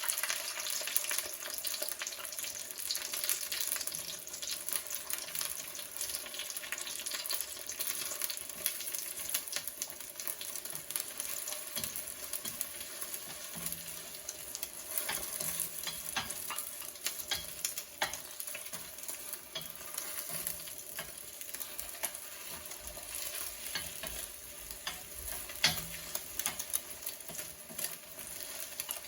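Beaten egg and fresh mint frying in sesame oil in a pan: a steady sizzle with frequent small clicks and scrapes of stirring.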